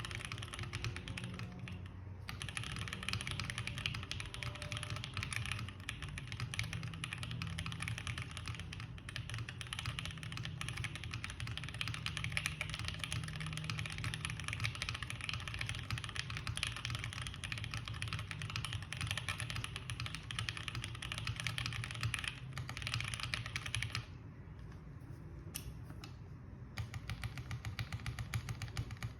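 Continuous fast typing on a QK65 gasket-mount mechanical keyboard with lubed Tangerine linear switches, a POM plate and GMK keycaps: a dense run of keystrokes that thins to a few single strokes for about three seconds near the end, then picks up again.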